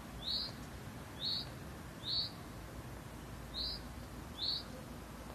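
A bird chirping: five short, high single notes, roughly one a second, with a longer gap near the middle.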